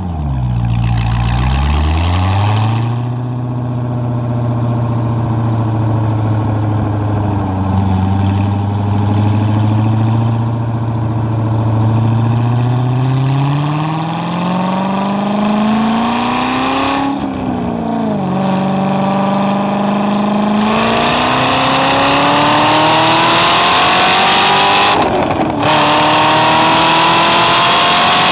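Chevrolet Corvette C6 Z06's 7.0-litre LS7 V8 driven hard: a long steady stretch, then revs climbing with sharp upshifts about seventeen seconds in and again near twenty-five seconds. It gets louder under full throttle in the last part.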